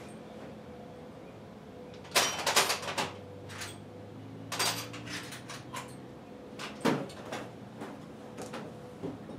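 Rummaging through a toolbox drawer: metal tools clinking and rattling in a series of short bursts, the loudest about two seconds in.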